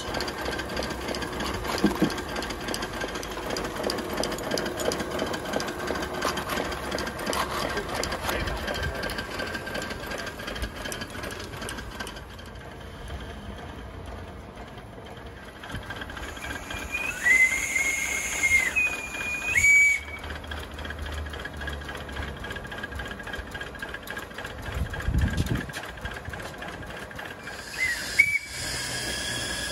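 Live steam from a 5-inch gauge GER Y5 'coffee pot' miniature locomotive on steam test: the engine runs with a rapid chuffing beat and steam hiss. About halfway through, its steam whistle sounds twice in short blasts, each sliding up into its note, and once more briefly near the end.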